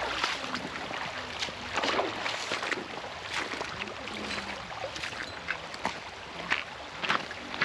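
Footsteps crunching irregularly on loose river gravel and cobbles, over a steady rushing hiss of running water.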